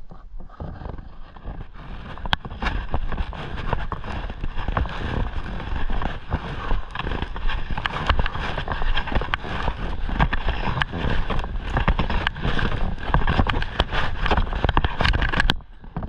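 Footsteps climbing steps, with rubbing and rustling against the microphone as the climber carries a heavy bag.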